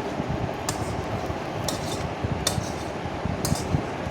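Metal spatula scraping and clanking against a kadai as thick chicken curry masala is stirred and scooped, four short scrapes about a second apart over a steady background hiss.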